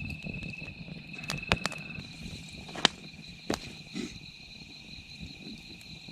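Crickets trilling steadily at two pitches, a second, higher trill joining about two seconds in, with a handful of sharp pops from a freshly lit campfire crackling.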